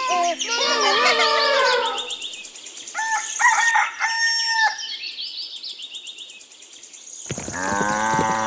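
Farm-animal sound effects: chirping and clucking calls at first, then a rooster crowing from about three seconds in, with faint bird chirps behind. Near the end, a long drawn-out animal call begins, horse-like.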